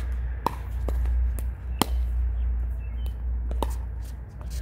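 Pickleball paddles striking a plastic pickleball during a rally: several sharp hollow pocks at uneven intervals, over a steady low rumble.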